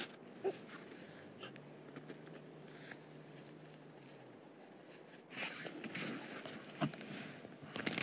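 Faint quiet ambience with a low steady hum, then, from about five seconds in, crunching and scraping in snow.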